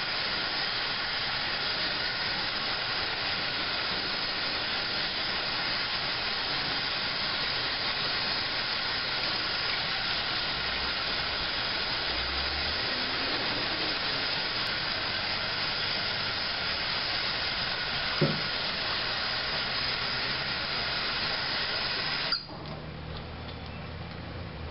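Hot water running steadily from a faucet into a stainless steel sink while a steel pulley is scrubbed under the stream, with a single knock partway through. The tap is shut off near the end, cutting the water sound abruptly.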